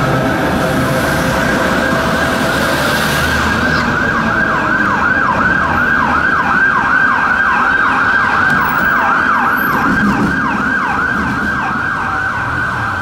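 Emergency vehicle siren in a fast yelp, its pitch sweeping up and down about three times a second, over the low rumble of street traffic and trams. It grows clear a few seconds in and eases a little near the end.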